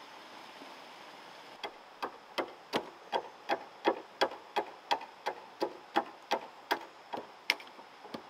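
A short wooden club knocking against a log crossbeam of a pole frame: a steady series of sharp wood-on-wood knocks, about three a second, starting about a second and a half in.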